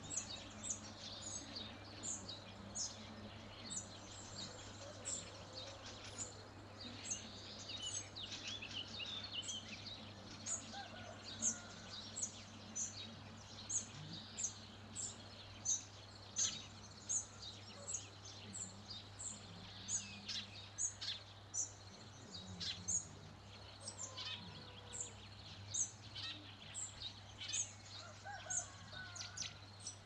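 Wild birds singing. One bird repeats a short, very high chirp about once a second or a little faster throughout, while other birds add warbling phrases now and then, busiest in the first third.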